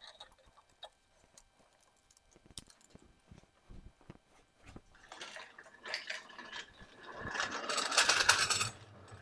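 Engine hoist and its lifting chain being unhooked and moved: scattered light metal clinks and knocks, building after about five seconds into a couple of seconds of dense metallic rattling and clatter that stops shortly before the end.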